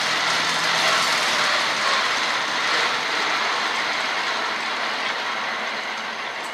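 Twin-spindle rope-making machine running: a steady, dense mechanical noise that gradually gets quieter toward the end.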